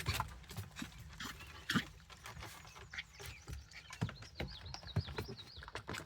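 Puppies eating: irregular small crunches and clicks of kibble and feeding bowls. A brief high wavering squeak comes about four seconds in.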